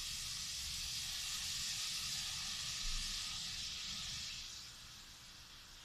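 Carrots, string beans and cabbage sizzling in a hot frying pan as soy sauce goes in. The steady sizzle dies down about four and a half seconds in.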